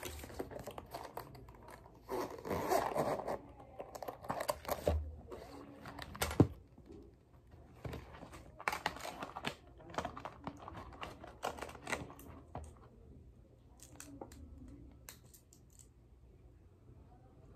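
Handling of a plastic zippered pencil case: irregular rustling, scraping and small clicks and knocks, with one sharp click about six seconds in.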